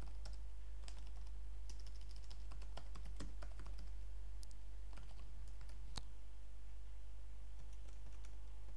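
Computer keyboard being typed on: scattered, irregular key clicks over a steady low hum.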